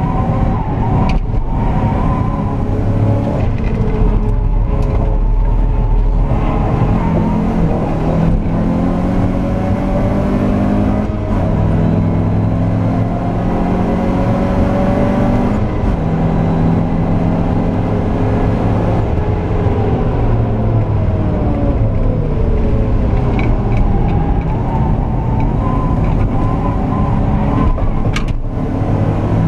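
Alfa Romeo Alfasud 1.5 TI's flat-four engine, heard from inside the cabin, driven hard on track: the revs climb and drop sharply at gear changes about 11 and 15 seconds in, then fall away and climb again in the last third.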